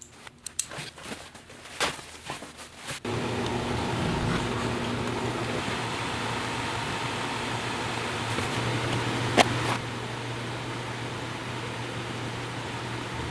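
A few light clicks and knocks, then a machine starts about three seconds in and runs with a steady, even whir and a low hum; one sharp click sounds over it near the end.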